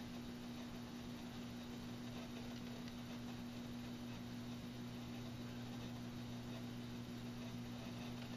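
A steady low electrical hum with a faint hiss behind it.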